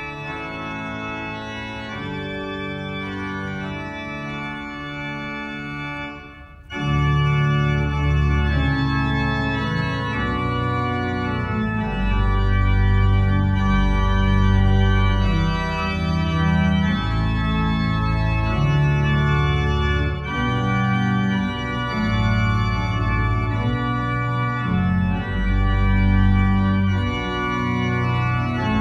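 Church organ playing the closing voluntary with sustained, changing chords. It is soft at first, then about seven seconds in it becomes much louder with a deep bass line.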